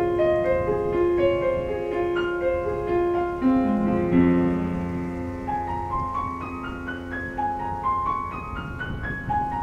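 Solo piano playing repeated broken-chord figures. About four seconds in it moves to lower notes, then plays short runs that climb note by note, over and over.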